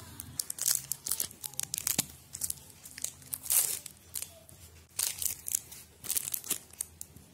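Thin clear plastic packaging crinkling and crackling in irregular bursts as a small bead garland is handled and taken out of its plastic sleeve.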